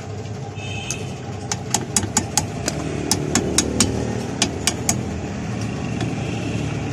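About a dozen sharp, irregular clicks and taps from hand work on car drum brake parts, over a steady engine-like running hum.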